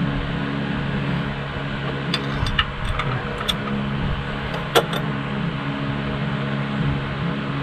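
Pushrods being set into the lifters of a diesel engine, tapping and clicking against metal: a handful of light taps in the middle and one sharper click near five seconds. Under it runs a steady low hum.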